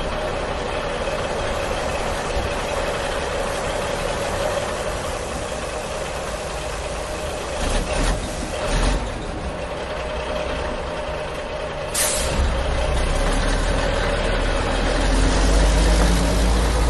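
Truck engine sound effect running steadily. About twelve seconds in there is a short sharp hiss, and a deeper low rumble carries on after it.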